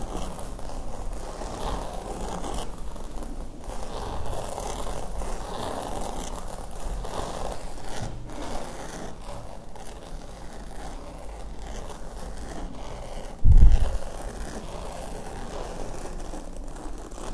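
Fingertips scratching and tracing over the hard, ribbed skin of a whole squash, a steady stream of close-up scraping strokes. About two-thirds of the way through there is one loud low thump.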